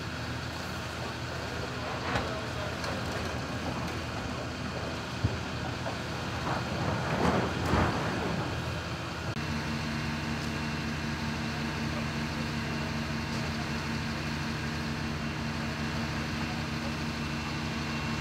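Diesel engines of heavy machinery running steadily as an excavator tears at a burnt roof, with a louder stretch of crunching noise about seven to eight seconds in. From about nine seconds in, an even engine hum with a constant tone takes over.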